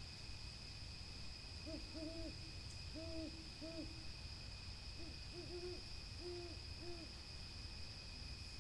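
Owl hooting: two runs of short, low hoots, about five notes starting near two seconds in and about six more from five seconds in. A steady high-pitched tone runs beneath them throughout.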